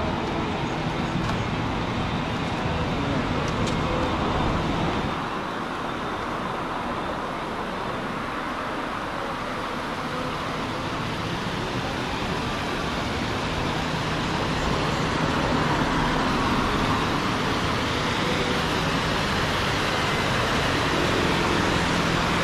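Steady outdoor noise of passing road traffic, with low vehicle engines rumbling for the first few seconds and again through the second half.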